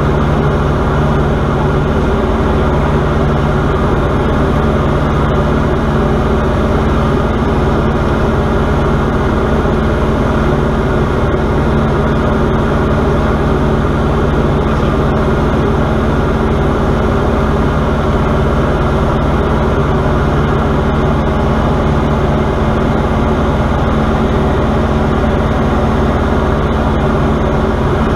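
Diamond DA40 light aircraft's piston engine and propeller running at a steady cruise-climb power, an even drone heard from inside the cockpit in flight.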